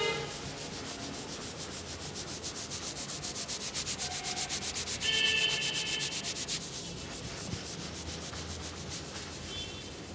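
Fingers rubbing and scratching through long hair and over the scalp in quick, rhythmic strokes during a head massage. The strokes are densest in the first two-thirds. A brief high tone sounds about five seconds in.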